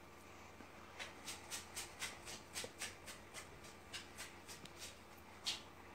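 Faint, soft rustling: a quick run of short brushing strokes, about three or four a second, then one louder stroke near the end.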